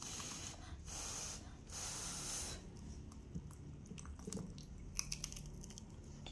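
Three short hissing rushes of air, each about half a second long, then a few light crunchy clicks of crispy fried green rice balls being chewed.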